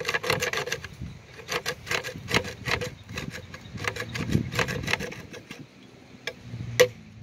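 A large knife blade sawing back and forth against the rim of a wooden toilet seat, with runs of quick rasping strokes that thin out to a few near the end.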